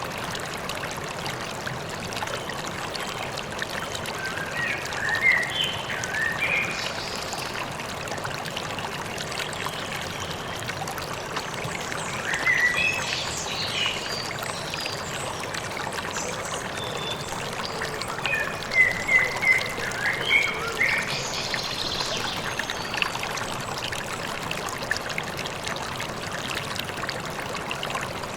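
A river running steadily, with songbirds chirping in short bursts of high calls several times over it.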